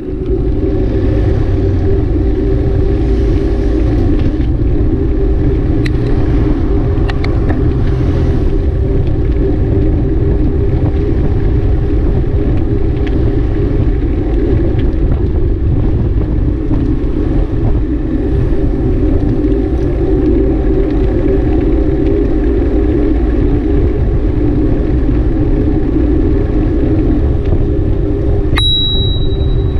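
Wind buffeting the microphone of a bike-mounted action camera while riding, mixed with tyre rumble, a loud steady low rushing. A brief high beep sounds near the end.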